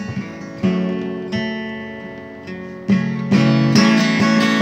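Acoustic guitar strummed: a few chords struck and left to ring, then busier, louder strumming from about three seconds in.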